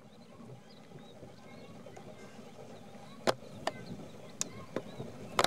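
Outdoor background noise: a low rumble that grows slightly louder, with several sharp clicks in the second half, close together near the end.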